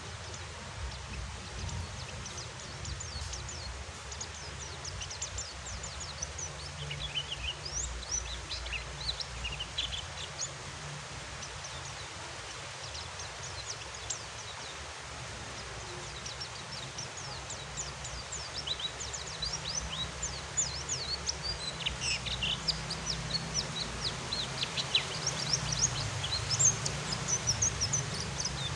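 A white-eye (pleci) twittering in quick, high, falling chirps over a steady hiss of rain; the chirps come in clusters and are busiest near the end. The soft twitter is what keepers call ngeriwik, taken as a sign of a relaxed, comfortable bird.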